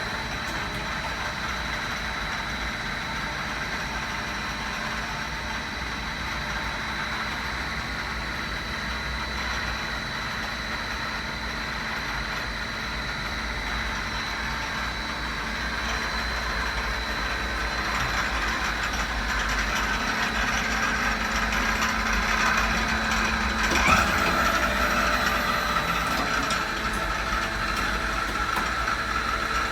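Citizen Cincom G32 CNC lathe running: a steady machine hum with a constant high whine that grows louder in the second half, and one sharp knock about 24 seconds in.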